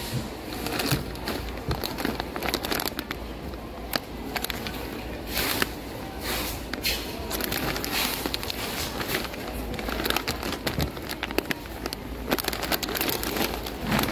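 Plastic snack bag crinkling and rustling as it is picked up and handled, with scattered sharp clicks.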